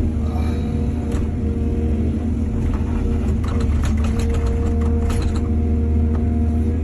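Excavator's diesel engine running steadily, with a run of clatter and clanks from about two and a half to five and a half seconds in.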